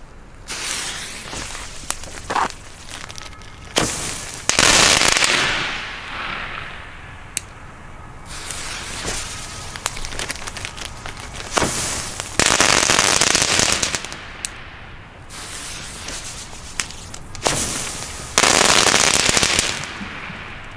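A ground firework (the 'Explode Big Balls') going off: scattered sharp cracks, then three loud bursts of crackling noise of one to two seconds each, about four seconds in, about twelve seconds in and near the end, with smaller bursts between.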